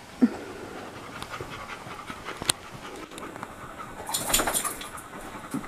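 A dog panting, with a few light clicks.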